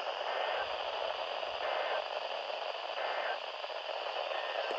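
Steady hiss and static from a radio receiver tuned to a NOAA Weather Radio station, dead air with no voice between announcements.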